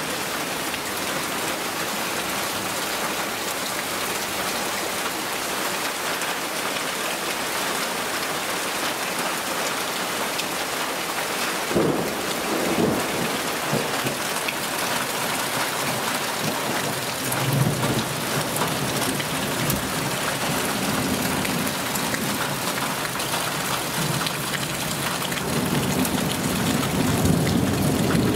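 Heavy summer downpour pouring steadily onto puddles, paving and foliage, a dense hiss of rain. A few low rumbles swell through it about halfway through and again near the end.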